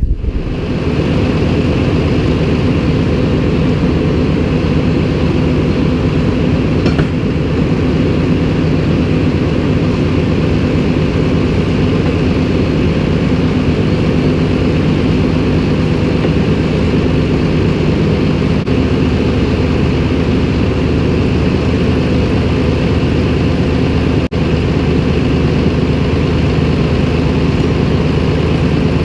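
Farm tractor engine running steadily, its note shifting slightly about two-thirds of the way through.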